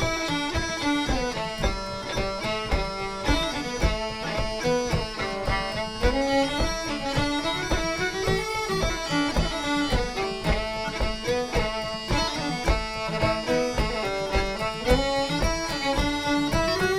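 Celtic band playing a brisk instrumental tune: flute and fiddle carry a fast melody over guitar and a steady bodhrán beat.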